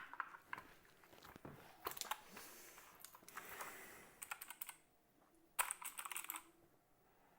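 Typing on a mechanical keyboard with clicky blue switches, in uneven bursts of keystrokes that stop about six and a half seconds in.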